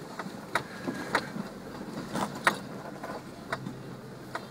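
Jeep creeping along a rough, overgrown forest trail: a faint low engine hum under about ten irregularly spaced sharp knocks and clicks, the loudest about two and a half seconds in.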